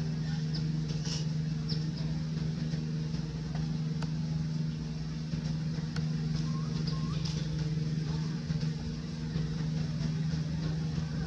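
A steady low mechanical hum, like a motor running, with a few faint clicks and short faint chirps.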